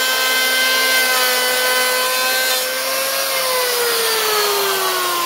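Makita 1900B 3-inch electric hand planer running loud, its cutter head shaving a rough wood block at 1/32-inch depth: a steady high whine over the hiss of cutting. About three seconds in, the planer comes off the wood and the motor winds down, its whine falling steadily in pitch.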